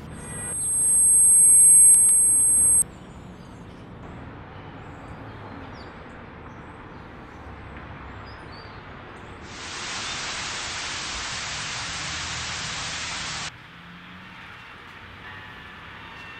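A loud high-pitched tone swells over about two seconds and cuts off suddenly, over a low steady hum of city traffic. Past the middle, a hiss of static comes in and stops abruptly about four seconds later.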